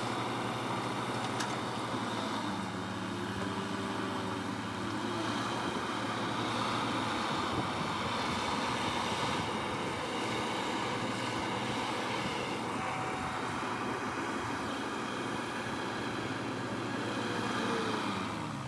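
Heavy diesel engines of a backhoe and a land-clearing shredder running with a steady low drone as the backhoe pulls the shredder out of deep mud where it was stuck.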